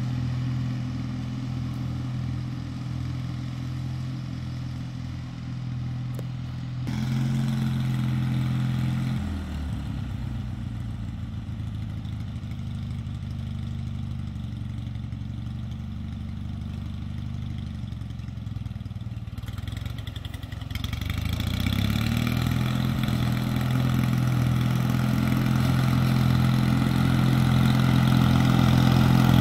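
Allis-Chalmers T816 garden tractor engine running steadily while mowing. Its pitch drops about a third of the way in and climbs back later, and it grows louder near the end as the tractor comes closer.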